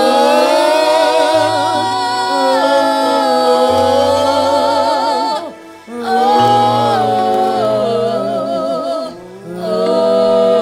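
Church worship music: a voice sings long held notes with vibrato in three phrases over sustained low bass notes.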